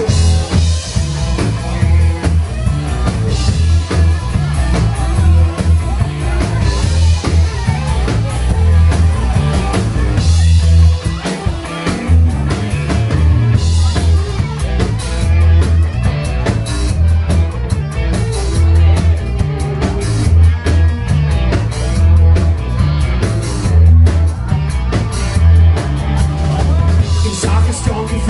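Live rock band playing: electric guitars over bass and drums, with a steady, pulsing beat in the low end.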